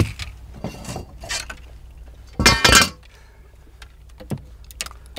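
Knocks and clinks of a caught northern pike being handled and lifted off a boat's deck, with the loudest sound a half-second rattling clatter about two and a half seconds in.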